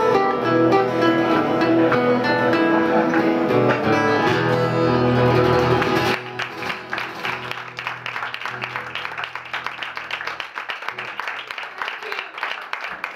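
Live acoustic band, guitar and upright bass, playing the last bars of a song; about six seconds in the music stops and the audience applauds.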